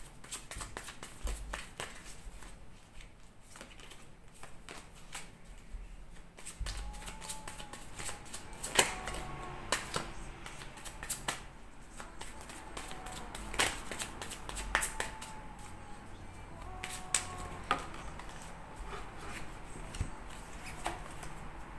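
Tarot deck being shuffled by hand: a steady run of soft card clicks and riffles, with a few sharper snaps of the cards.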